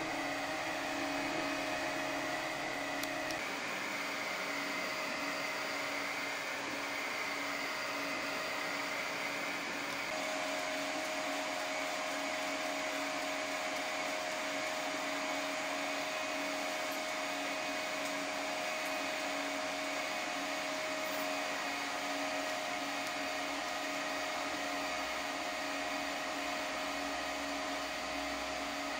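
3D printer running a print: a steady whir of cooling fans with the stepper motors whining as the print head moves. The motor tones shift in pitch a few times.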